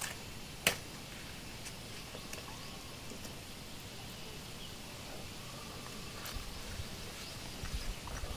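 Banana-leaf food wrapper being handled and unfolded: scattered soft clicks and crinkles, with one sharp click about a second in, over a steady outdoor background.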